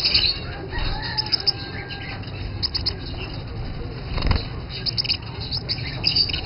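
Gouldian finches chirping in short, high, repeated calls, with a flutter of wings about four seconds in as a finch arrives at the wicker nest basket.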